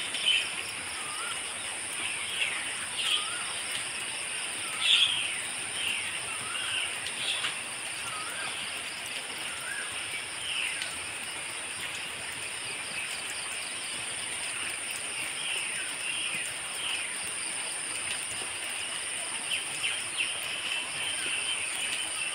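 Birds calling: short chirps and small rising whistles repeated over and over, most of them in the first half. Under them runs a steady, high-pitched insect buzz.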